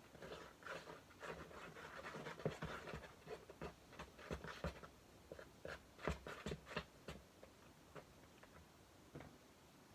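Irregular small scratchy clicks and scrapes of hands working slime-making materials, busier in the first half and thinning out toward the end.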